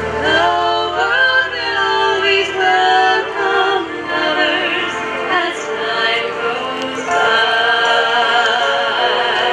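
Music with operatic singing, a solo voice over a choir. The low drone of a single-engine light aircraft fades out in the first couple of seconds as it climbs away.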